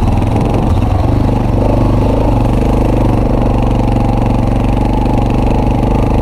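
ATV (quad) engine running steadily at an even, fairly constant speed, close to the microphone.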